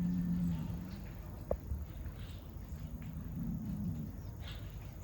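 A bull bellowing low and drawn out, twice: once at the start and again about three seconds in. It is the resident bull asserting that this pasture is his as other bulls come in.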